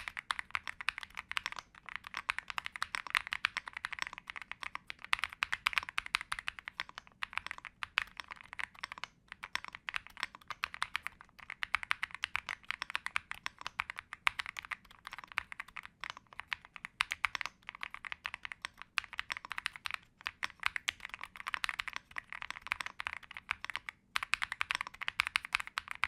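Mechanical keyboard with Akko Cream Yellow linear switches being typed on in a sound test: a fast, continuous run of key clacks with a few brief pauses. The switches have a polycarbonate top housing, nylon bottom housing and POM stem.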